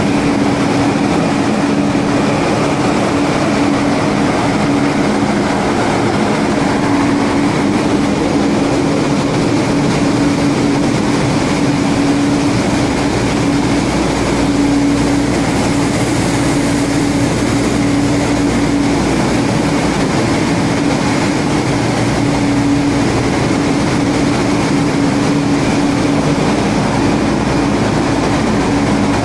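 Loud, steady machinery din of a dual-fuel diesel-electric LNG carrier's engine room: a continuous drone with a steady hum running underneath, unchanging throughout.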